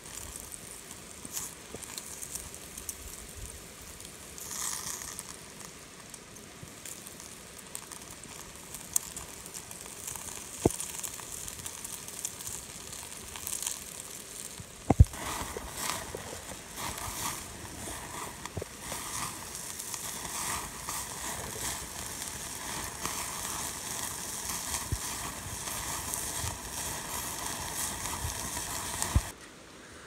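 Meat grilling on a wire grate over charcoal: fat sizzling and crackling, with sharp pops and snaps. About halfway through the sizzling becomes louder and denser as flames flare up through the grate, then it stops abruptly near the end.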